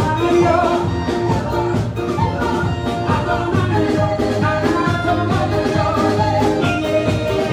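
Loud live dance music with a singer over a steady beat, played through a PA system.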